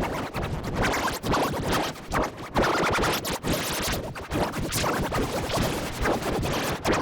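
Heavily effect-distorted music, chopped into rapid stutters with a scratchy, record-scratch-like noise and no clear melody.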